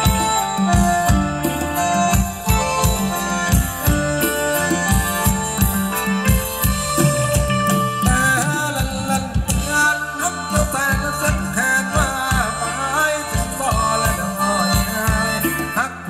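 Live Thai folk dance-band music for ramwong, with a steady drum beat under a melody; a wavering higher melody line comes in about halfway.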